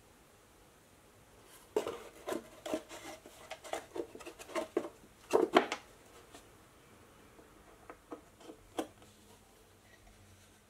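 Light wooden clicks, taps and rubbing as a wooden sake box and a ukulele are handled, with a quick cluster of knocks from about two to six seconds in and a few single taps near nine seconds.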